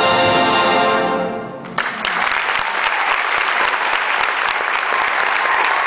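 A high school concert band holds its final chord, which fades out about a second and a half in; the audience then breaks into applause, with a faint whistle near the end.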